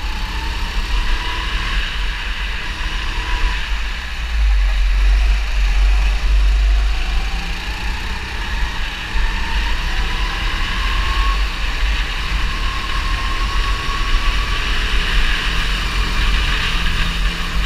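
270 cc four-stroke rental kart engine, heard from on board at speed, its pitch rising as it revs up along the straights and falling back into the corners, with other karts' engines close by. A heavy low rumble lies under it.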